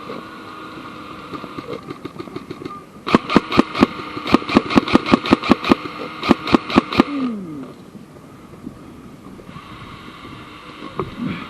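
Airsoft gun firing a rapid string of about twenty sharp shots, roughly five a second, from about three seconds in to about seven, over a steady background hum.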